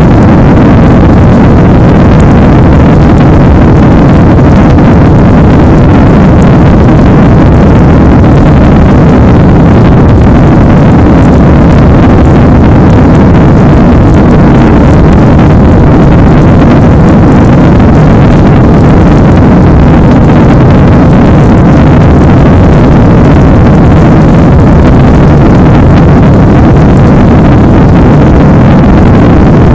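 Steady, loud jet-airliner cabin noise of a Boeing 767-300 climbing out after takeoff: an even, deep rumble of engines and rushing air, with no change in pitch.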